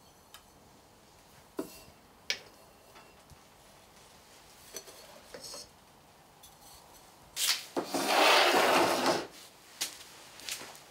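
A hand rubbing over the top of a wooden banding wheel: a rasping scrape about two seconds long, about two thirds of the way through, the loudest sound here. Before it come a few light clicks and knocks.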